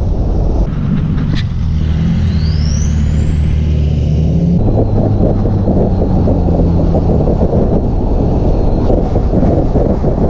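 Wind buffeting the microphone from an open car window at speed, over the steady low drone of a Nissan 350z's V6 engine and exhaust. About a second in, the wind eases and the engine drone stands out, with a single click and a high whistle rising over a couple of seconds. At about four and a half seconds the wind buffeting suddenly returns.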